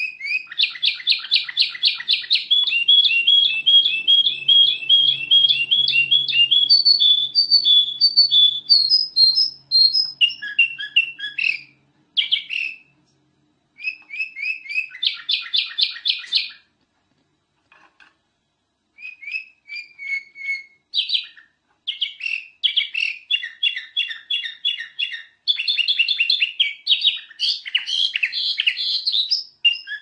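Kutilang emas (black-crested bulbul) singing: fast runs of short chirping whistled notes, several a second, broken by two brief pauses around the middle.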